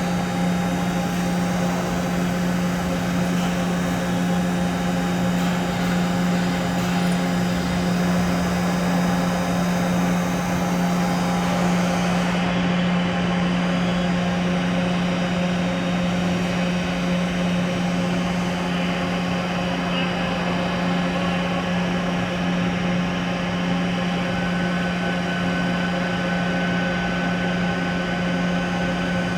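Toshiba BP-130.P40 CNC horizontal boring mill running under power: a steady machine hum with several steady tones over it. The highest hiss drops away about twelve seconds in, and a higher steady whine comes in near the end.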